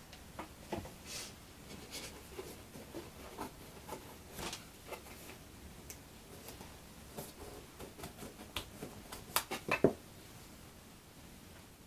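Small scattered clicks, taps and rustles of small parts being handled on a workbench, with a quick run of sharper clicks near the end.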